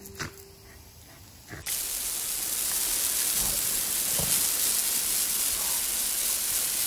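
Water spraying from a garden hose: a steady hiss that starts suddenly about a second and a half in.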